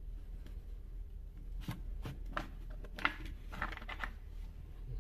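Light clicks and scrapes of small chainsaw parts being fitted by hand, a scattered handful starting nearly two seconds in, over a low steady hum.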